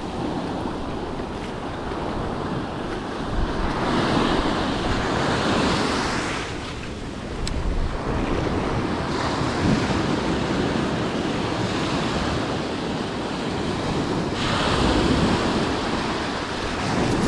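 Ocean surf breaking and washing up a sandy beach, rising and falling in surges, with the louder washes about four seconds in and again near the end. Wind buffets the microphone throughout.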